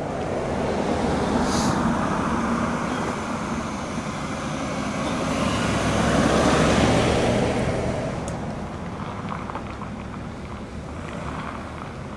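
A vehicle drives slowly past: engine and tyre noise swell as it approaches, are loudest about six to seven seconds in as it passes close by, then fade as it drives away.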